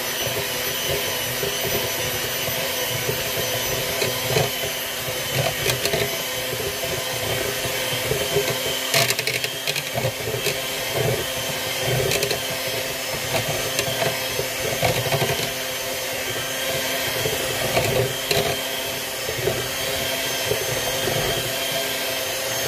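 Electric hand mixer running steadily at speed, its beaters whirring through a batter of creamed butter and eggs, with occasional short knocks.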